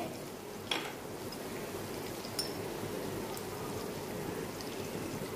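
Onion-tomato masala sizzling gently in a kadhai over a low gas flame, with a single light clink about a second in.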